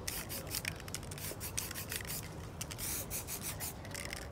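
Spray painting on a canvas: quick short hisses from an aerosol spray-paint can mixed with paper being rubbed and pressed over the wet paint, several strokes a second.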